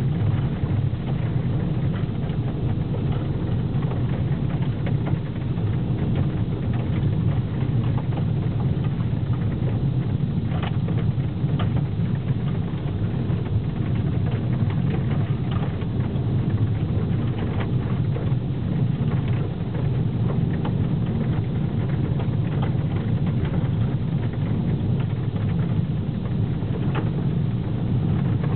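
Steady low rumble of a car's engine and tyres heard from inside the cabin while driving on a snow-covered road, with a few faint ticks.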